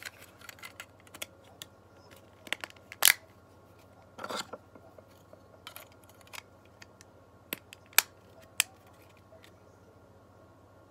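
Plastic Xbox One controller shell parts handled and pressed together, giving a string of irregular sharp clicks and short rattles, the loudest about three seconds in and again about eight seconds in.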